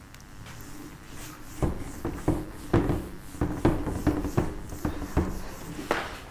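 Cloth duster wiping marker off a whiteboard in quick back-and-forth strokes, about a dozen rubs starting about a second and a half in.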